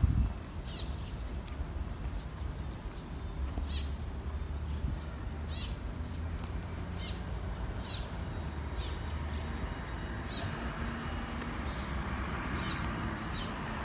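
A small bird repeating a short, high, falling call about once a second, over a steady low outdoor rumble.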